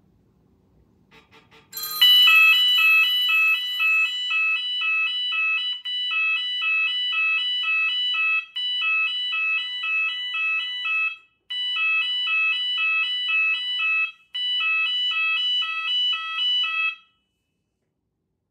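Cell phone ringing with a repeating electronic melody ringtone, loud and rhythmic, in phrases with three short breaks, stopping about three-quarters of the way through. The ring is what sets off the home-built ring extender.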